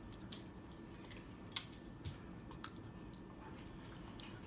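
A person chewing food with the mouth closed, faint, with a handful of short, soft wet mouth clicks.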